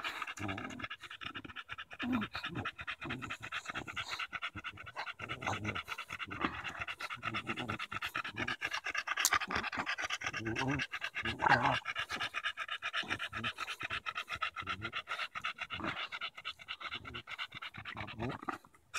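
English bulldog panting hard and fast while gnawing at a branch; the rapid panting runs on and breaks off just before the end.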